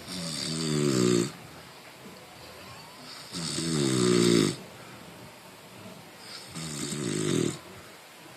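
Snoring: three snores about three seconds apart, each rising in pitch over about a second with a breathy rasp.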